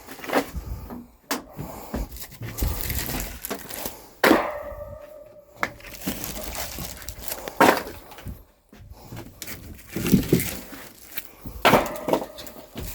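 Dry split firewood logs knocking against each other as they are unloaded and stacked: about five sharp wooden clunks a few seconds apart. The loudest, about four seconds in, rings briefly.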